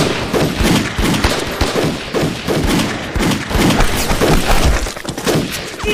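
Dense gunfire from several guns, shot after shot overlapping without a break.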